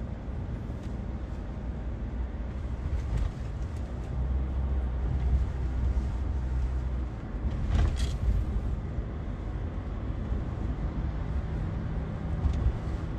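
Car cabin noise heard from inside a moving car: a steady low rumble of engine and road. There is a short louder noise about eight seconds in.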